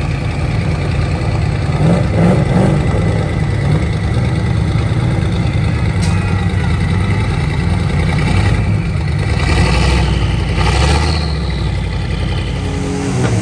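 Military Chevrolet truck's engine revving under load as it tries to pull out of deep mud, with louder surges about two seconds in and again near the nine-to-eleven-second mark.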